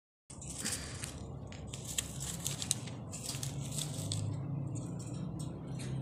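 Scattered light clicks, rattles and rustles from a wire bird cage as a young parakeet moves about on its bars and straw, over a steady low rumble.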